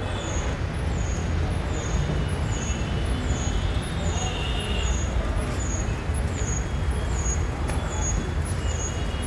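Road traffic noise: a steady rumble of passing vehicles on a city street.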